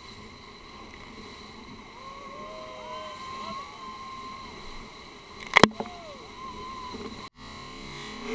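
Rushing river whitewater as a raft drops into a big rapid, with faint wavering tones above the rush and one sharp knock about five and a half seconds in. The sound breaks off abruptly about a second before the end.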